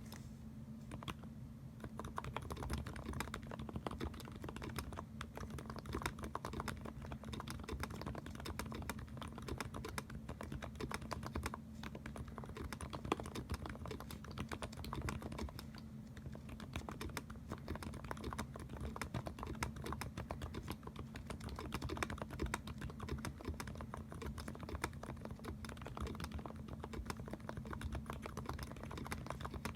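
Mechanical keyboard with sorbothane dampening being typed on quickly and continuously: a dense, irregular stream of key clicks during a typing test, over a faint steady low hum.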